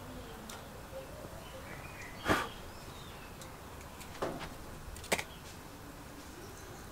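A few sharp taps and knocks from a cardboard cutout being handled over and lifted off a lit cast-iron gas burner and set down on a rubber mat. The loudest knock comes about two seconds in, and two smaller ones follow about two and three seconds later.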